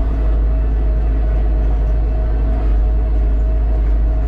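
Kubota tractor's diesel engine running steadily at high revs, heard from inside the cab: a deep, even drone with a steady whine over it.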